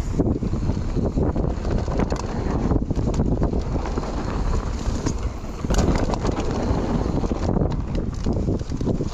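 Mountain bike descending a dry dirt trail, recorded on a GoPro: wind buffets the microphone while the tyres rumble and the bike rattles over bumps, with many short knocks.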